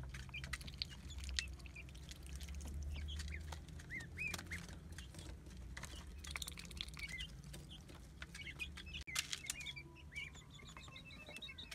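Young chickens pecking grain feed on the ground, beaks tapping in quick irregular clicks, with short high peeping chirps repeated throughout.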